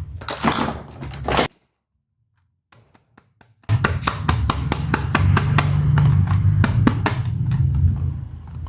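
Plastic toy pieces and packaging being handled: rapid clicks, taps and crinkles over a steady low hum. The sound cuts out about a second and a half in and comes back nearly two seconds later.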